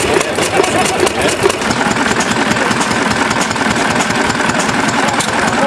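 Stationary hit-and-miss engine running, a steady mechanical clatter made of many fast clicks.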